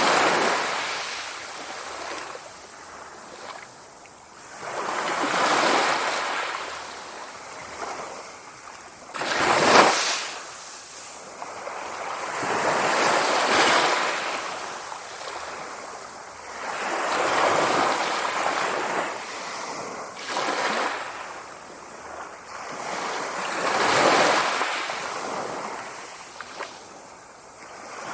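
Sea waves breaking, each one a rushing wash of surf that swells and fades about every four seconds. One sharper, louder crash comes about ten seconds in.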